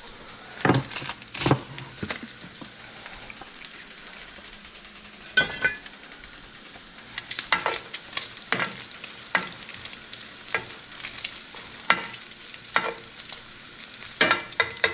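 Diced pancetta sizzling in a cast iron skillet as a metal spoon stirs it, with sharp clinks and scrapes of the spoon against the pan at irregular intervals over a steady hiss of frying fat.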